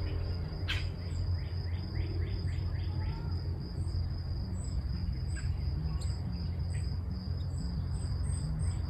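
Outdoor summer ambience: small birds chirping, with a quick run of short falling chirps in the first few seconds, over a steady high insect drone and a low rumble.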